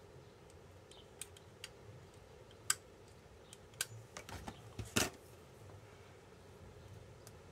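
Scattered small clicks and taps of a craft knife and a pointed tool against paper and the tabletop while picking at the hard-to-lift liner of red double-sided tape, with a sharper knock about five seconds in.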